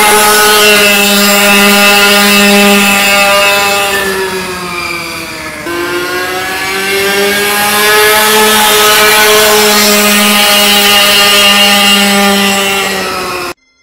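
Small 50cc two-stroke mini dirt bike engine revving high and steady. Its pitch sags about four seconds in, jumps back up and climbs, holds high again, then cuts off abruptly near the end.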